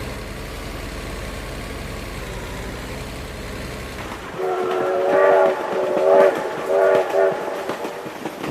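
A train horn blows three times, each blast a chord of several tones, over a steady low rumble of a train running.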